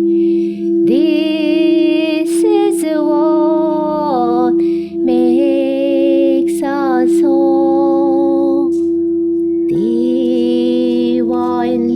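Wordless singing in long held notes with vibrato, some sliding up into the note, over a steady low drone.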